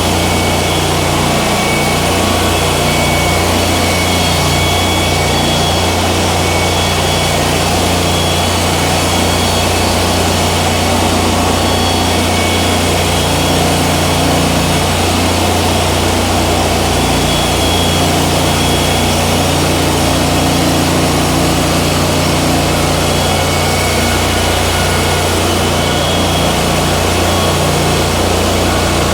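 Wood-Mizer LT40 portable band sawmill running steadily, its engine holding a constant low hum with no change in speed.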